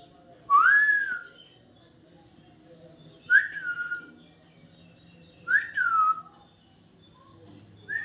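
A pet parakeet whistling: three clear whistles, each rising then falling, repeated about every two and a half seconds, with a fourth starting right at the end.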